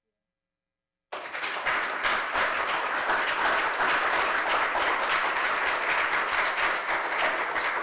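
Audience applauding, starting abruptly after about a second of dead silence and keeping up steadily.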